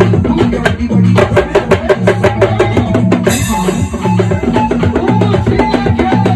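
Drum kit played to a music track with a repeating bass line: quick, steady strokes on kick and snare, with a bright crash about three seconds in.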